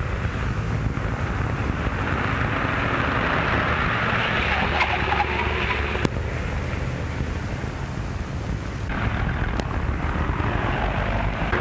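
A car driving: a steady rushing noise over a low engine hum, swelling after a couple of seconds, with a sharp click about six seconds in.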